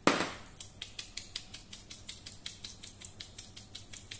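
Wire-mesh sieve being shaken over a mixing bowl to sift flour: one loud knock as it starts, then a steady rapid ticking of the sieve at about six taps a second.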